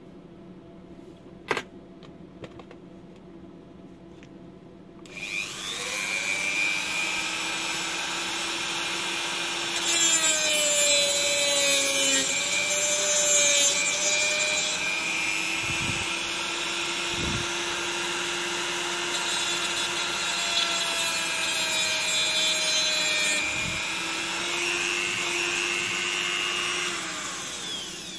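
Handheld rotary multitool (a Dremel clone) with a small cutting disc spins up about five seconds in, its whine rising. It then grinds through a lamp's metal flat-connector contact, with a harsh hiss that is loudest in the middle. The pitch falls away as it winds down near the end.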